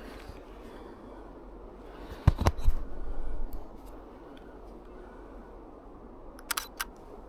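Clicks and knocks from a Canon EOS M3 camera being handled and shot: two loud knocks about two seconds in, then a quick run of three or four shutter clicks near the end.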